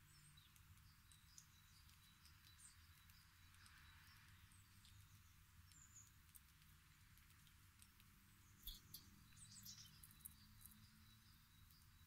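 Very faint bird chirps and soft clicks, the clicks clustering about nine seconds in, from a European goldfinch picking seeds from a teasel seedhead.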